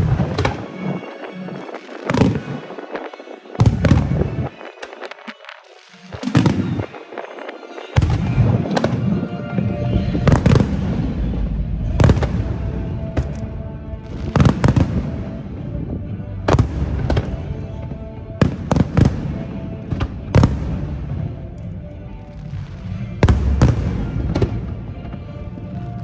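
Aerial firework shells bursting one after another, sharp bangs about every second, heard from a few hundred metres away. Music plays underneath from about a third of the way in.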